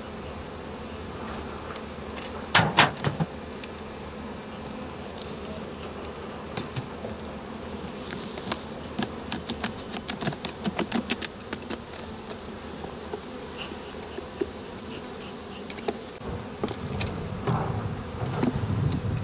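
Honeybees buzzing in a steady hum around the hives during the honey harvest. A loud knock comes about two and a half seconds in, and a quick run of sharp clicks and taps follows in the middle.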